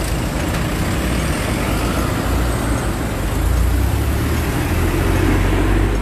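A bus driving past close by, its engine a low rumble that grows heavier about two seconds in, over steady street traffic noise.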